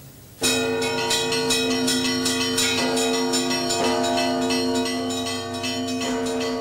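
Russian Orthodox church bells rung by hand from ropes, starting about half a second in: a rapid peal of quick strikes over the lasting hum of the larger bells.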